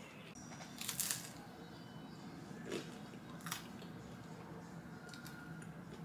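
Someone biting and chewing toasted bread: a few short crunches, the loudest about a second in, over a low steady hum.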